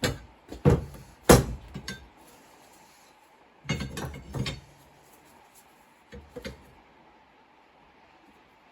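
Hammer striking a centre punch on a steel mower blade, marking dot-punch holes for drilling: three sharp metallic blows in the first two seconds, a quicker cluster of knocks about four seconds in, and two lighter taps near six and a half seconds.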